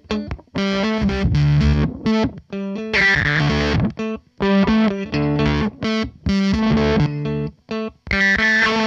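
Electric guitar played through a Binford 6100, a Matthews Cosmonaut delay and a Chase Bliss Automatone preamp while the pedals' knobs and sliders are turned live. Choppy, distorted notes cut in and out several times a second and step in pitch, with a harsher, noisier stretch about three seconds in and again near the end.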